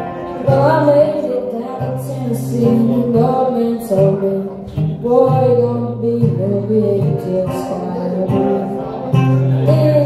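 A young singer singing a melody over a strummed Taylor acoustic guitar, the voice and guitar together making a steady song.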